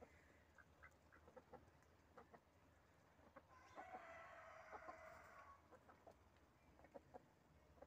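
Hens clucking faintly in short, scattered clucks. About halfway through, a rooster crows once, for nearly two seconds.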